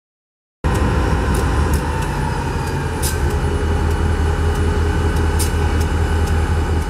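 Diesel locomotive running, a loud steady low drone with a few sharp clicks on top, cutting in abruptly about half a second in.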